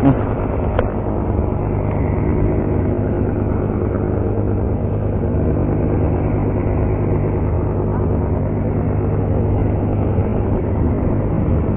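An engine running steadily, a low, even hum that does not change in pitch or level.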